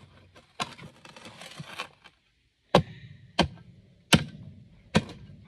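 A shovel scraping through hard, dry dirt, then four sharp chops of the blade into it about three-quarters of a second apart, breaking it up for a scoop.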